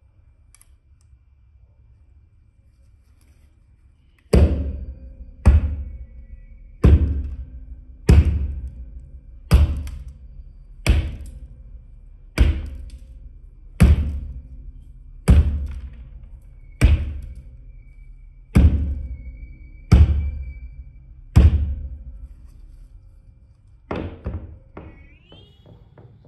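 A metal multi-tool hammer smashing candies on a hard tabletop: about four seconds in it begins thirteen heavy blows, evenly spaced about one and a half seconds apart, each with a short ringing decay. Near the end come a few lighter knocks.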